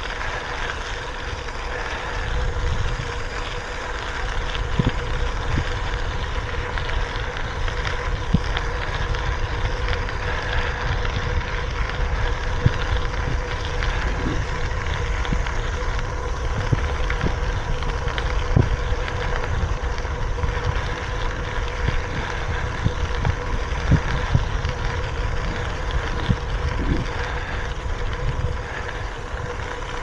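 Wind noise on the microphone and bicycle tyres rolling over a crushed-stone gravel trail: a steady low rumble, broken by scattered clicks and knocks from stones and bumps, with a faint steady hum throughout.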